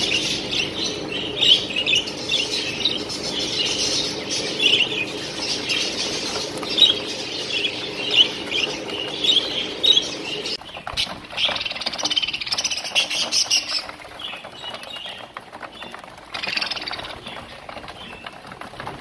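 A flock of budgerigars chattering and chirping continuously, with wings flapping as birds flutter around their food dishes. After about ten seconds the chatter thins, leaving scattered clicks, scratching and fluttering.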